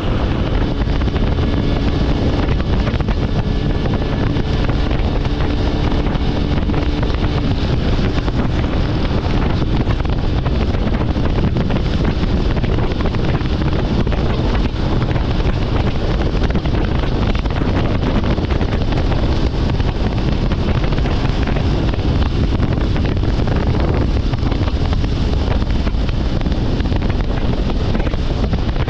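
Steady wind rush on the microphone of a Yamaha YBR125 motorcycle being ridden along a road, with its single-cylinder engine running underneath.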